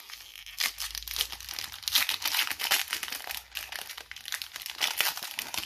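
Foil wrapper of a Pokémon card booster pack crinkling and tearing as it is ripped open by hand, a dense run of irregular crackles.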